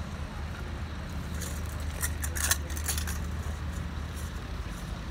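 Truck's diesel engine running with a steady low drone that fades out shortly before the end. A brief cluster of light metallic clinks sounds about two to three seconds in.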